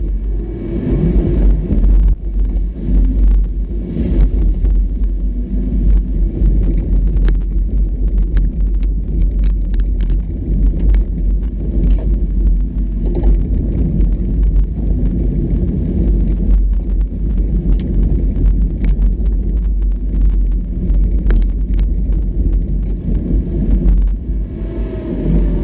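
Off-road vehicle driving over a rough trail: a steady low rumble of engine and tyres, with frequent small rattles and knocks.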